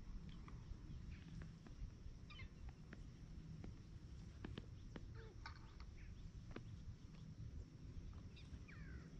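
Faint calls of gulls, short scattered cries with a falling cry near the end, over a low steady rumble.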